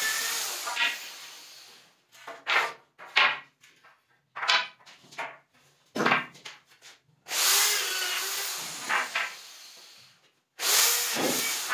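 Corded electric drill boring into a wooden batten in three runs, each starting suddenly and dying away over a couple of seconds. Between the runs come short knocks and scrapes of the wood being handled.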